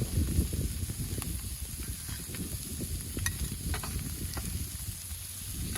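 Food frying in hot butter in a pan, sizzling with scattered sharp pops and crackles over a low rough rumble. The butter is running too hot and browning.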